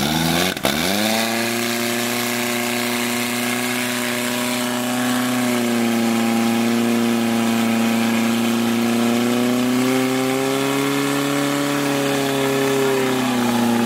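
Portable fire pump's small petrol engine dips briefly about half a second in, then revs up sharply and holds high, steady revs while pumping water under load through the attack hoses. Its pitch climbs a little near the end and drops back just before it stops.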